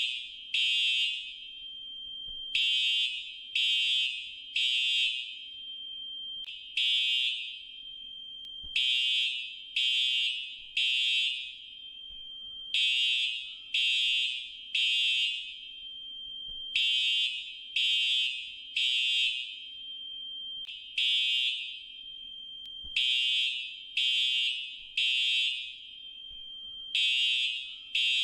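Fire alarm sounding the temporal-three evacuation pattern: high-pitched electronic beeps, mostly in groups of three about a second apart, with a new group starting about every four seconds.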